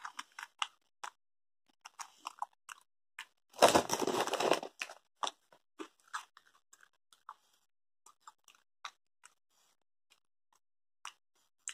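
A person chewing crunchy cheese puffs, mouth crunches and small clicks at irregular intervals. About four seconds in comes a louder crunching burst lasting about a second.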